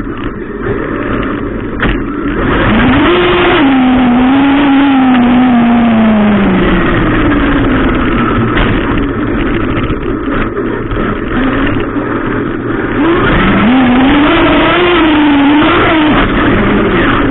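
Traxxas Unlimited Desert Racer RC truck driving hard, its electric motor whining up and down in pitch as it accelerates and slows, twice, over a constant rush of tyre and ground noise.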